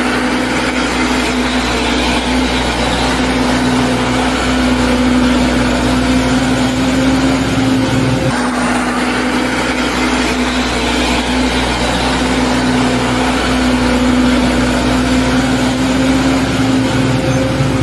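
Steady engine running at an even idle, a truck engine sound effect laid over the toy trucks. There is a slight shift about eight seconds in.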